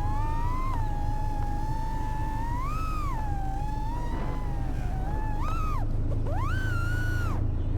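Small FPV quadcopter's motors and propellers whining, the pitch rising and falling with the throttle. There are short climbs about three seconds in and near five and a half seconds, then a longer, higher surge that cuts off sharply just before the end.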